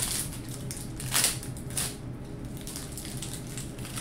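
Trading-card pack wrapper crinkling and tearing as it is ripped open by hand. There are three sharp bursts in the first two seconds, the loudest about a second in, then only quieter handling.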